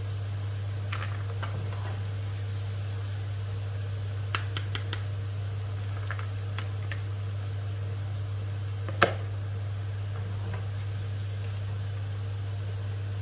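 Metal slotted spoon and wooden spatula clacking as fried peanuts are scooped from the pan and tipped into a plastic colander to drain: a few light clicks, a quick run of taps about four seconds in, and one sharper knock about nine seconds in, over a steady low hum.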